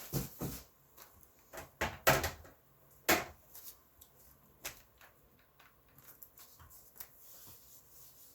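Hard plastic comic slabs being handled and set down: a few sharp clacks and knocks in the first three seconds or so, then fainter rustles and small ticks.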